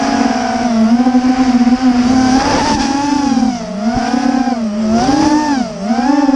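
250-size FPV racing quadcopter's motors and propellers whining steadily, the pitch dipping and climbing again several times as the throttle changes, with a brief rush of air noise near the middle.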